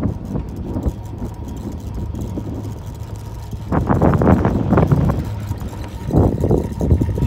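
Chairlift ride: a steady low hum from the moving lift. About four seconds in, a louder rattling rumble of more than a second comes as the chair passes over a lift tower's sheave wheels, and a shorter rattle follows about six seconds in.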